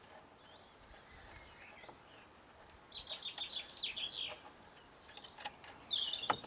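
Birdsong: a run of quick high chirps, then a short falling call near the end. A few light clicks come from small turntable parts being handled.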